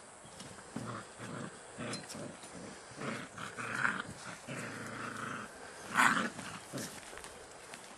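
Belgian Shepherd dogs growling in a run of short, low, rough growls, with one louder, sharper sound about six seconds in.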